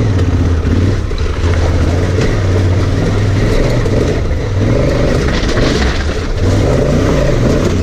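Honda Africa Twin CRF1000's parallel-twin engine running under load, its pitch rising and falling with the throttle.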